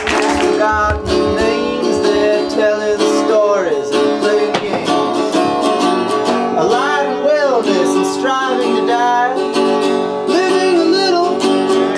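Music: an acoustic guitar playing strummed chords, with a voice singing a melody over them.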